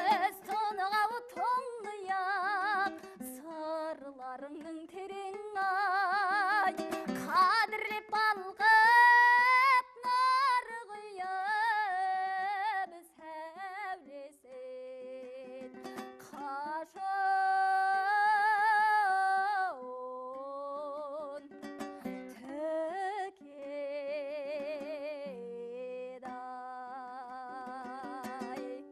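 A singer performing a Kazakh folk song, with strong vibrato on long held notes, over a plucked string accompaniment.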